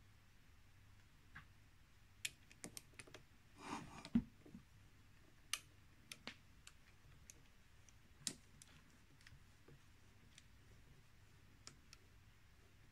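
Sparse sharp ticks and clicks over a faint low hum, with a small clatter about four seconds in: brass chips coming off a rod being turned on a Sherline 4100 mini lathe.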